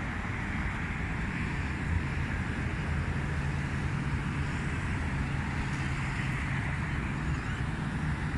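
Steady wind noise during a dust storm, rumbling on the microphone, with a low, even hum like distant traffic underneath.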